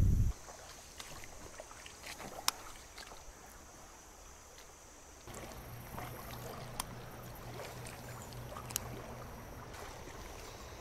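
Shallow stream water flowing and trickling over a gravel bed, faint, with scattered small clicks. About five seconds in, a low steady hum joins the water sound.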